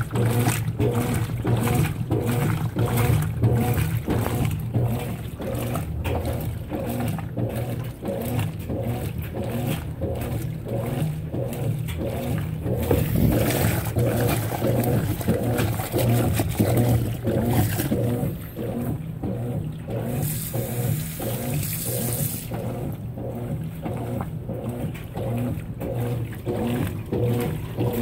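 Consul 16 kg top-load washing machine agitating a sudsy load: a steady low motor hum under the churning and sloshing of water as the agitator works. A brief rushing hiss comes twice, around the middle and again later.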